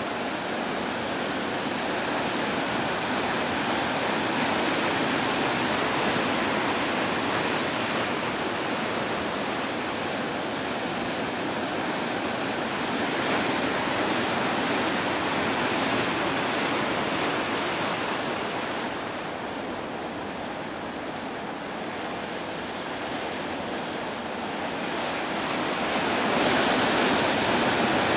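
Ocean surf breaking and washing in: a steady rush of white water that eases off for a few seconds past the middle and swells again near the end.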